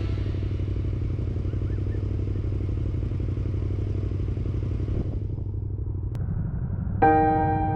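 Motorcycle engine running with an even low rumble made of rapid firing pulses, with fainter road and wind noise above it that drops away about five seconds in. A piano chord of background music comes in near the end.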